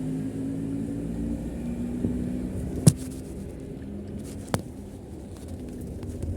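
Street traffic: a car engine running past with a low rumble, and two sharp clicks, about three and four and a half seconds in.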